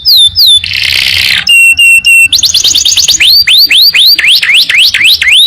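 Domestic canary singing a varied, loud song: two falling whistles, a harsh buzzing rattle about a second long, three short steady whistles, a very fast trill, then a long run of rising sweeps at about four a second.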